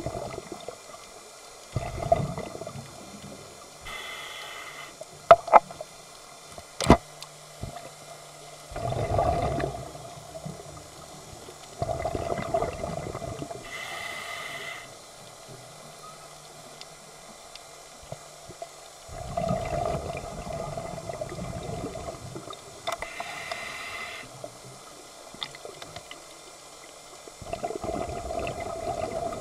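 Scuba diver breathing underwater through a regulator: a short hiss on each inhale and a longer rush of bubbles on each exhale, repeating every several seconds. A few sharp clicks come about five to seven seconds in.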